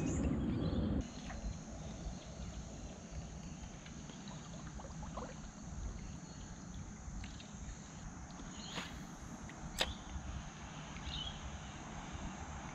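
Background music cuts off about a second in, leaving quiet creek ambience heard from a kayak: a faint even hiss with a steady high-pitched drone. A couple of short sharp clicks come about nine and ten seconds in.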